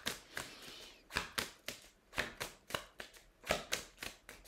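A deck of divination cards being shuffled by hand: a run of short card slaps, about three a second, unevenly spaced.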